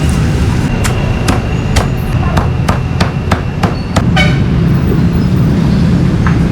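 Cleaver chopping meat on a cutting board: about a dozen sharp knocks, roughly three a second, stopping about four seconds in, over a steady low rumble of traffic.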